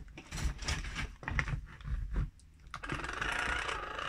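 Clicks and knocks as a plastic-cased hand-crank Megger insulation tester is shifted and propped up on a workbench. About three seconds in, the tester's crank is turned and its built-in dynamo sets up a steady whir.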